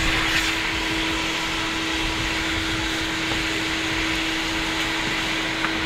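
Steady mechanical hum with one constant tone over an even rushing noise, like a running machine or motor, holding at the same level throughout.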